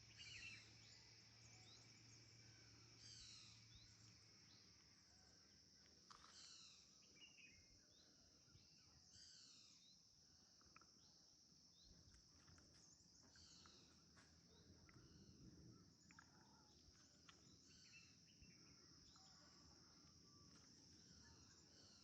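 Faint birdsong, a short descending phrase repeated every few seconds with other chirps between, over a steady high-pitched insect drone.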